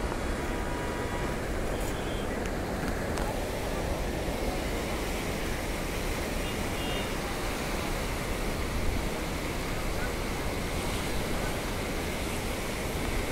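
Steady rushing of a fast-flowing, swollen river in flood, mixed with wind buffeting the microphone.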